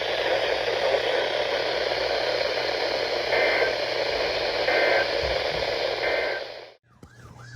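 Radio static hiss from a broadcast receiver. Under the hiss come three short two-tone data bursts a little over a second apart, the pattern of EAS end-of-message tones. The sound cuts off near the end, and a siren begins, rising and falling quickly.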